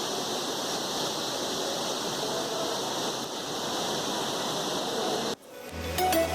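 Steady rushing of a waterfall that cuts off abruptly about five seconds in. Upbeat electronic background music then fades in.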